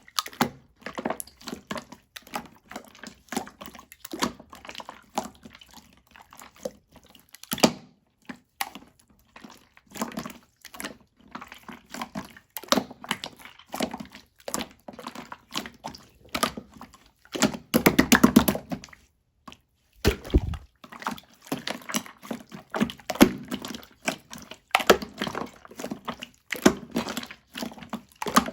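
Hands squishing, pressing and poking marbled slime: irregular wet clicks and pops, with a fast run of them about two-thirds of the way through and a dull thump shortly after.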